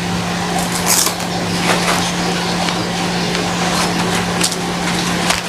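Plastic packaging of a new set of motorcycle knee and elbow pads rustling and crinkling in bursts as it is handled and opened, over a steady low hum.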